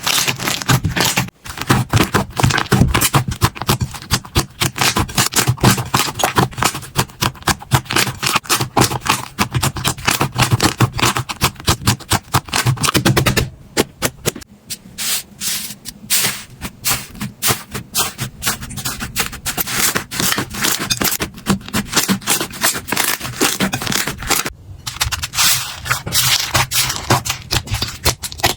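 Slime being squeezed and poked by hand, giving a dense run of crackling, popping clicks. The texture shifts twice, about 13 and 24 seconds in.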